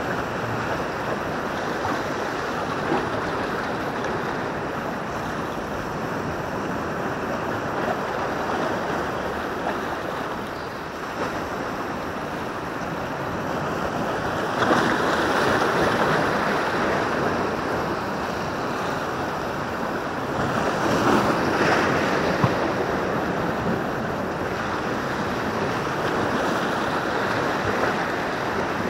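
Sea waves washing against a rocky shore, with wind on the microphone. The surf swells louder twice, about halfway through and again a few seconds later, as bigger waves break on the rocks.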